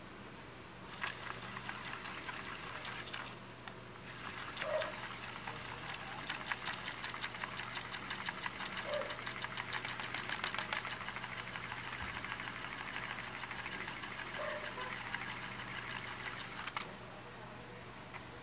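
Sony EF60 cassette wound by hand with a pencil through its hub: a rapid, even clicking and rattling of the plastic reels and hub turning. There is a brief pause about three and a half seconds in, and the winding stops about a second and a half before the end.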